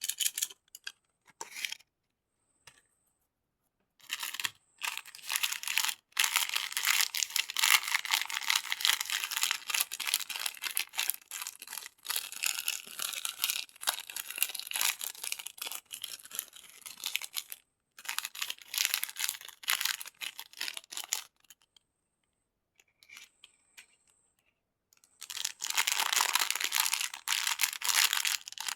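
Candy wrappers being crinkled and torn open: dense, crisp crackling in long stretches, with short pauses and a near-silent gap in between.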